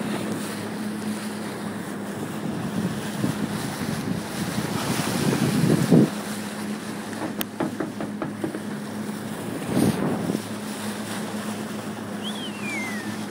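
A boat engine running steadily under water rushing past the hull and wind buffeting the microphone, with louder rushes of water about five to six seconds in and again around ten seconds. A short whistle falling in pitch near the end.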